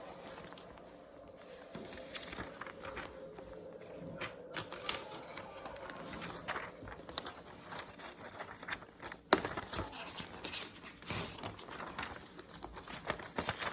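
Desk study sounds: irregular light taps, clicks and rustles of someone working at a desk with stationery and papers, with a sharper knock about nine seconds in.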